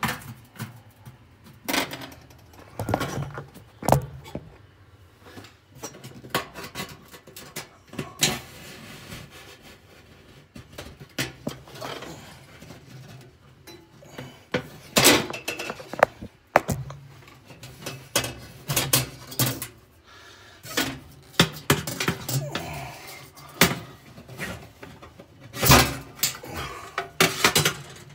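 Irregular metal clanks, clicks and knocks of hands working on an oven's bottom bake element: its mounting screws coming out, its wires being pulled off the terminals, and the element knocking against the sheet-metal oven floor.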